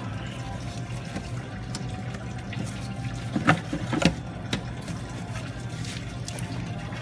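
Engine coolant running steadily out of an open radiator drain cock. About halfway through come a few light plastic knocks as the air intake tube and air box are lifted out.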